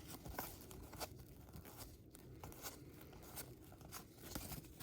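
Faint rustling and crinkling of trading card packs and cards being handled, with scattered soft clicks and tearing of wrapper.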